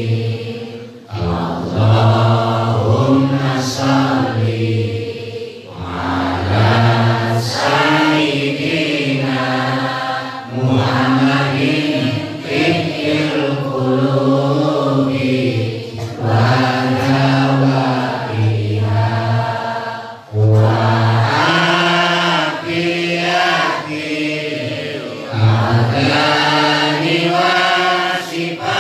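Male voice chanting a devotional recitation into a microphone, in long melodic phrases with short breaks every couple of seconds.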